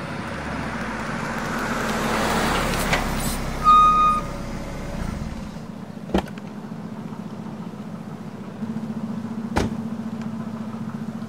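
A car drives by, its tyre and engine noise swelling and fading over the first five seconds. A short electronic beep sounds about four seconds in. Two sharp clicks follow, the second near the end as a car door's latch is pulled open.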